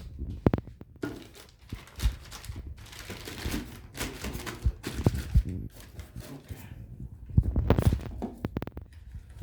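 Packaging being handled: plastic and cardboard rustling and crinkling, with scattered knocks and thunks as parts are set down in the box.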